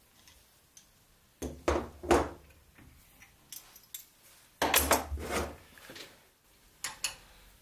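Metal clamps and hand tools clinking and knocking as they are handled, with two short bursts of clanks about a second and a half in and around five seconds in, and a single clink near the end.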